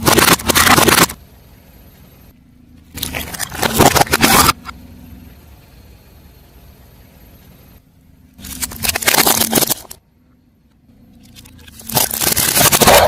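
Car tyre rolling over and crushing crunchy objects: four loud crackling, crunching bursts of about a second each, with a low rumble between them.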